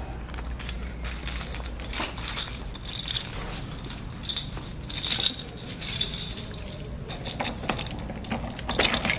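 Keys on a lanyard jangling and clinking irregularly as they swing, over a low steady hum.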